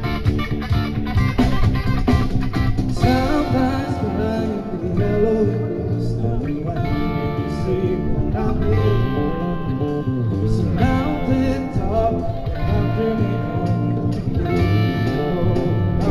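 Live band playing a song: electric bass, guitars and drums, with a male lead vocal singing over them from about three seconds in.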